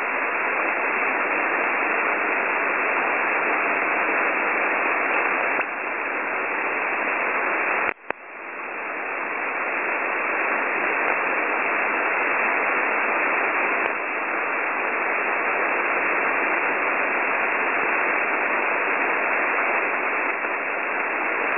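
Shortwave radio hiss from a WebSDR receiver tuned to 9270 kHz, the numbers station's voice gone from the channel. About eight seconds in the hiss cuts out briefly and swells back up, and a few faint clicks sit on top.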